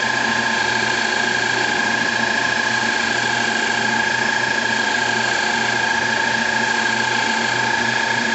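CNC-converted Grizzly G0602 lathe running a cut in aluminium, with a steady, even high whine over a low hum.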